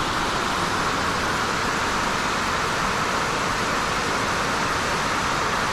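Steady rushing of water pouring over a low dam spillway, an even unbroken noise.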